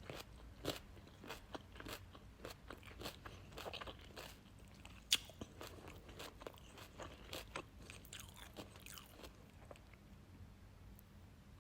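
Raw carrot being chewed: a run of crisp, irregular crunches, one sharp loud crunch about halfway through, with the chewing thinning out and fading near the end.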